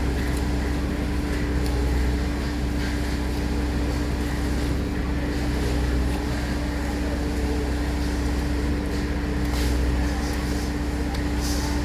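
Heavy diesel engine of a concrete pump truck running steadily under load, with a deep, even hum and a constant mid-pitched drone.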